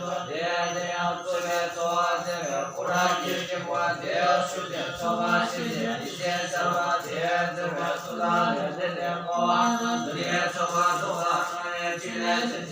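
Buddhist mantra chant: voices chanting in repeated phrases over a steady low drone.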